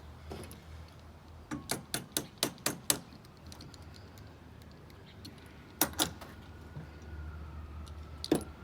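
Sharp metallic clicks and taps as a copper pipe and copper elbow fitting are handled and knocked together: about six in quick succession, then two more a few seconds later and a single one near the end.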